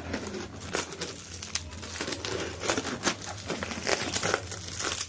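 Clear plastic wrap crinkling and crackling irregularly as it is pulled and peeled by hand off a cardboard laptop box.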